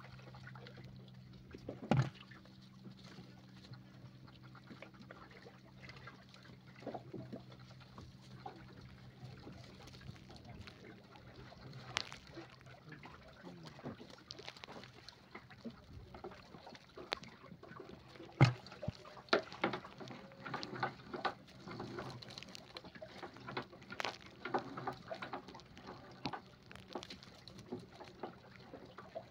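Wet gill net being hauled by hand into a small boat: the mesh rustles and drips water, with scattered knocks against the hull that grow denser in the second half, the sharpest about two seconds in and about eighteen seconds in. A faint steady low hum fades out about ten seconds in.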